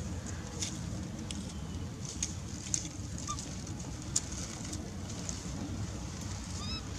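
Steady low outdoor rumble with scattered faint clicks. Near the end a baby macaque gives one brief high squeak.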